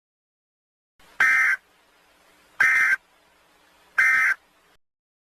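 Three short electronic beeps of the same pitch, evenly spaced about a second and a half apart, over a faint hiss.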